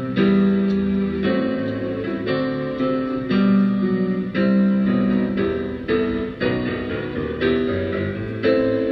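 Keyboard playing music in sustained chords that change about once a second.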